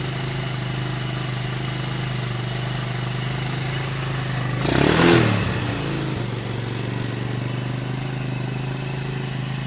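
150cc ATV engine idling steadily, with one short blip of the throttle about five seconds in that raises the revs and lets them fall back to idle.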